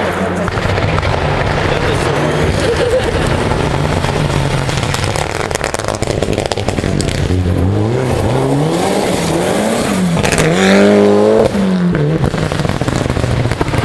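Rally car accelerating hard on a gravel-and-tarmac stage, its engine revs rising, dropping at gear changes and rising again, loudest about eleven seconds in.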